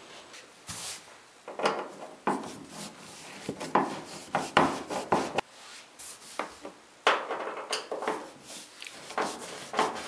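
Screwdriver backing the screws out of the sheet-metal front panel at the bottom of a gas dryer: a run of short, irregular scraping and rubbing sounds with small clicks.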